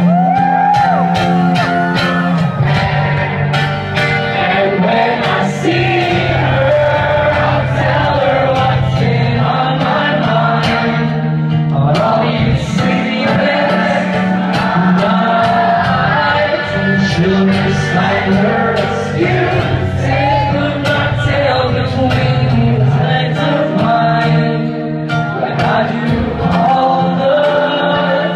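Live acoustic guitar strummed steadily under a male voice singing, with the sound of a large concert hall.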